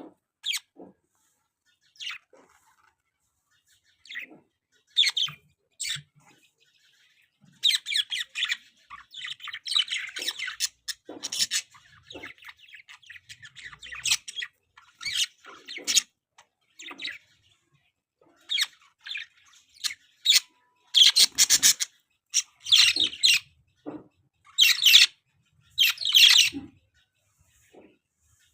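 Pet budgerigars chirping and chattering in short high calls. A stretch of continuous warbling chatter runs from about eight to fourteen seconds in, and louder, harsher calls come in the last third.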